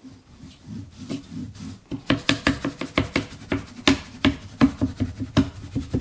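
Paintbrush scrubbing and dabbing paint onto a stretched canvas: faint rasping strokes, then from about two seconds in sharper, louder strokes at roughly three or four a second, each with a low ringing note.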